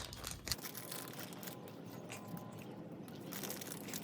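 Faint crinkling and light clicks as the new oil filter's small parts and O-rings are handled. A low rumble underneath stops about half a second in.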